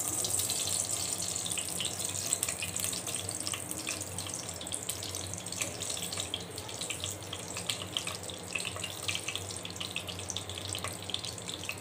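Leftover frying oil poured into a hot pot, hissing and crackling as it hits the metal. The hiss eases over the first few seconds into steady spitting crackles of hot oil.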